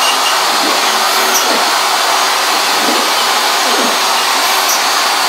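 A CNC router table running: a steady motor whir, with the stepper motors' whine rising and falling in pitch every second or so as the gantry speeds up and slows down on its moves.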